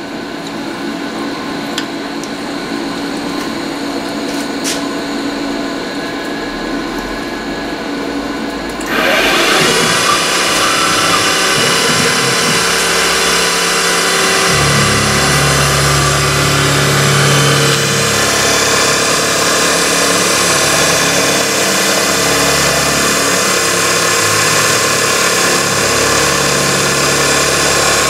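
CNC milling machine running a 10 mm spot drill with flood coolant splashing over an aluminium knob, chamfering the flutes. A steady machine hum becomes suddenly louder and fuller about nine seconds in and stays loud, with a deeper rumble added a few seconds later.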